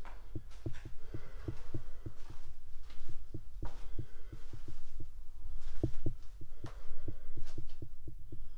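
Footsteps on a concrete floor: a quick, uneven run of low, dull thuds, about three a second, with a few sharper scuffs among them.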